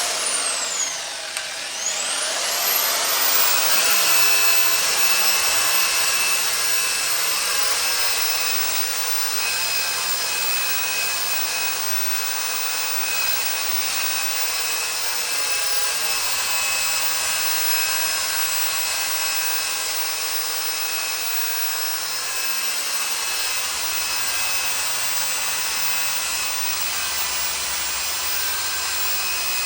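Handheld tube belt sander spinning up with a high whine that rises, dips and rises again in the first two seconds. It then runs steadily, its belt sanding a stainless steel exhaust pipe to a satin finish.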